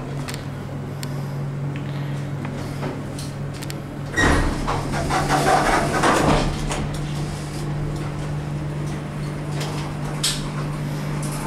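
Dover hydraulic elevator car: a steady low hum, then about four seconds in a short tone and the car doors sliding for about two seconds, with a click near the end.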